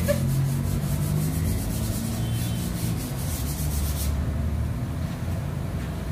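Quick, repeated rubbing strokes on the rough surface of an unfinished terracotta pot, stopping about four seconds in, with a low steady hum underneath.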